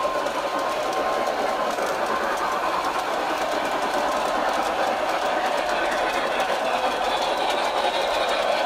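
Model train running around the layout track: its small electric motor gives a steady whir, with fast, light clicking of the wheels over the rail joints.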